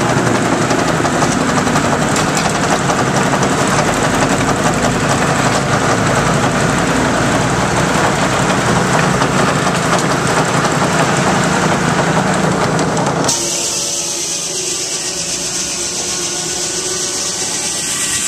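A sawmill blade, belt-driven by a Russell steam traction engine, running and cutting wood with a loud, steady mechanical din. About thirteen seconds in it cuts off suddenly, leaving a steady high hiss of steam.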